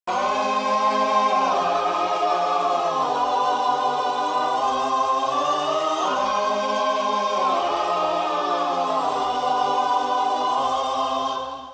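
Choir singing held chords, a choir meme sound effect. It starts suddenly, shifts chord several times and fades out near the end.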